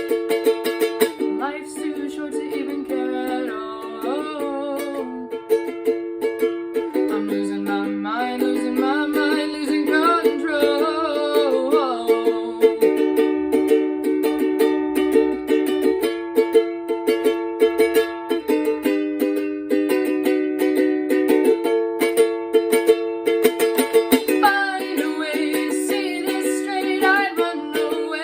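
Music: a strummed acoustic string instrument playing steady chords, with a voice singing over it in stretches.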